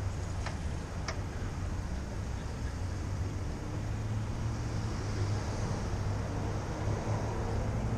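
Steady low rumble of street traffic and road noise heard while riding a bicycle through city streets, with two short clicks about half a second and a second in.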